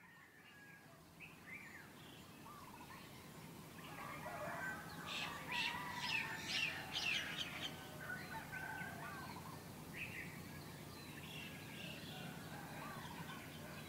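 Many birds calling and chirping together, busiest and loudest for a few seconds a little before the middle, over a steady low hum. The sound fades in at the start.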